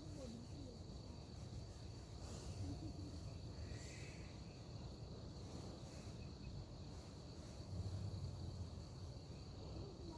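A sleeping person snoring faintly, two low snores about five seconds apart, the second one louder. A steady high-pitched tone runs in the background.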